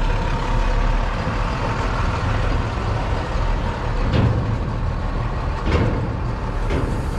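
Steady low rumble of a large engine running, with a few brief faint knocks or scuffs over it about four, five and a half and near seven seconds in.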